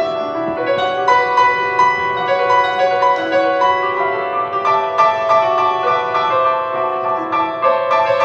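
Grand piano played solo: a run of single melody notes over held, ringing chords.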